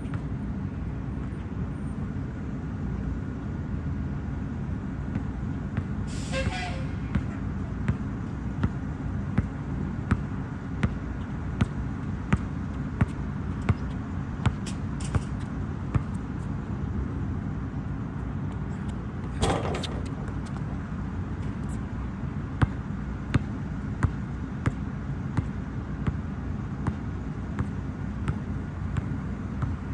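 Basketball dribbled on a hard outdoor court: two runs of even bounces, about one and a half a second, over a steady low rumble. A short burst of noise comes between the two runs.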